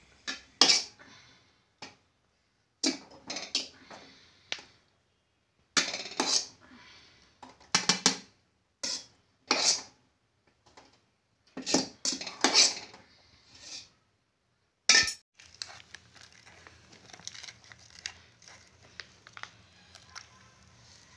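A steel spoon scrapes and clanks against a stainless steel pot and plate in a string of sharp strokes as cooked rice is served. About fifteen seconds in, after a last loud clank, it gives way to faint, soft clicking and squishing from a hand mixing chopped tomato and chilli in a small steel bowl.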